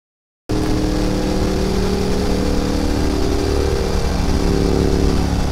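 Motorcycle with Meerkat Norton-style exhaust mufflers running at a steady cruise, recorded close to the exhaust pipe, with a lot of wind noise. It cuts in about half a second in, and its pitch shifts slightly partway through.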